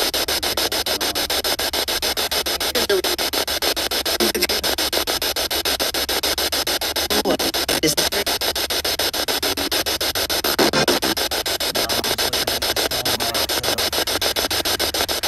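Spirit box (ghost box) sweeping through radio stations: steady static chopped into rapid, even pulses, with a few brief fragments partway through. The investigators label one of those fragments an EVP saying "you aren't listening".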